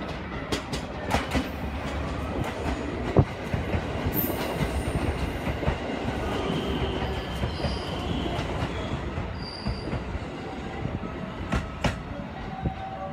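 JR West 223 series electric train running into the station, its wheels knocking over rail joints with a constant rumble, and a high-pitched squeal as it slows.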